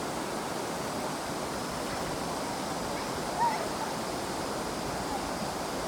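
River water flowing steadily, with a faint, steady high cicada drone. A short chirp about halfway through.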